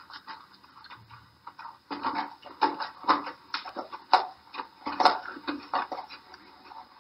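A sleeping dog's legs paddling against carpet as it runs in its sleep: rhythmic scuffing and brushing strokes, faint at first, then louder from about two seconds in at about two to three strokes a second.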